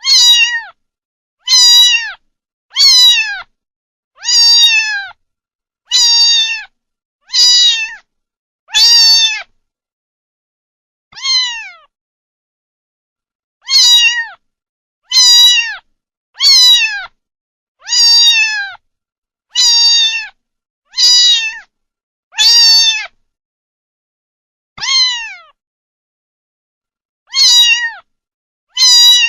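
A kitten meowing over and over in short, high-pitched mews, each falling in pitch at the end, about one every second and a half, with a few longer pauses and silence between the calls.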